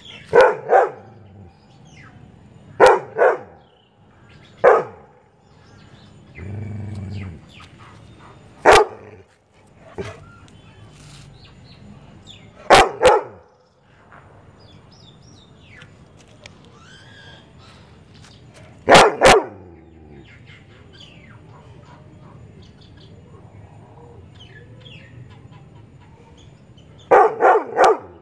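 Yellow Labrador retriever barking at chirping birds, in short bursts of one to three barks every few seconds, with a long pause before a last quick flurry near the end. Birds chirp faintly between the barks.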